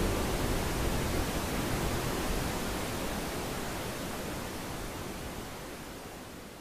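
A steady, even rushing noise, like wind or falling water, that slowly fades out.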